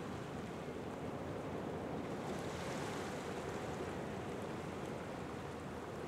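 Ocean surf breaking on a rocky shore: a steady rush of water that swells a little around the middle.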